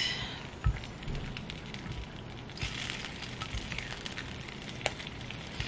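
Faint crackling and sizzling from a hot baking dish of roasted cherry tomatoes, olive oil and feta as it is stirred, with a couple of light knocks of the utensil.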